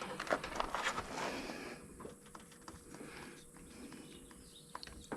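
Faint handling noise and footsteps: scattered light clicks and rustling, with a faint steady hum underneath.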